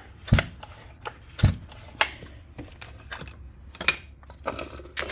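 Metal chainsaw parts and saw bodies clanking and knocking as they are handled and moved about: about half a dozen separate sharp knocks.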